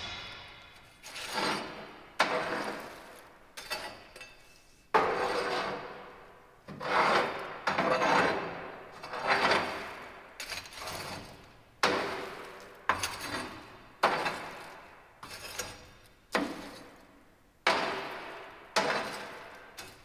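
Steel cleaning rod scraping ash and coals back and forth across the grate inside a wood furnace's firebox, in repeated rasping strokes about one a second. The ash is being sifted over the grate holes so the fine ash falls through into the ash drawer below.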